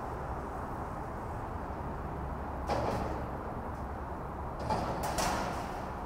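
Front-loader garbage truck's engine running as its lift arms lower the emptied dumpster, with a metal clunk about three seconds in and two more knocks near the end.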